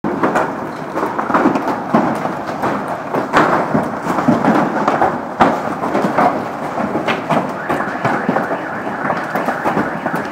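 Hail pelting the street, parked cars and roofs: a loud, dense clatter of countless small impacts with a few sharper cracks standing out.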